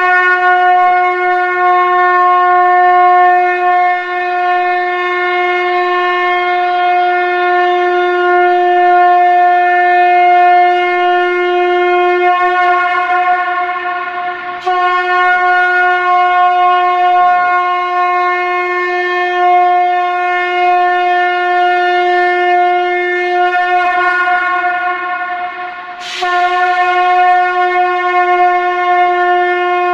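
Conch shell (shankha) blown in long blasts on one steady held note. Each blast sags slightly at its end, and a fresh blast starts about 15 seconds in and again about 26 seconds in.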